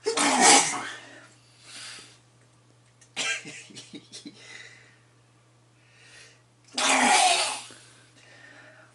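A man sneezing messily into his hands: two loud sneezes about seven seconds apart, with a quick run of short sharp sounds between them.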